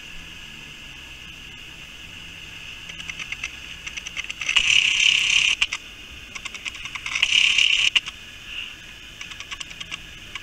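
Insects droning in a steady high band, with quick clicking that swells twice into a loud buzz lasting a second or so.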